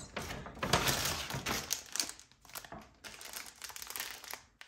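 Grocery bags and packaging crinkling and rustling as items are handled and unpacked, in irregular bursts with short pauses.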